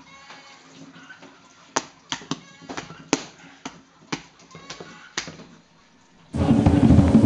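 Pestle striking a lump of breadfruit paste on a wooden board: a series of sharp, irregular taps and slaps, about two to three a second. Loud music with drums comes in suddenly near the end.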